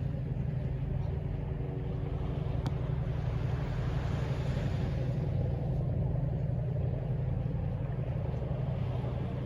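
Steady low rumble of distant city traffic, with a faint engine hum over it.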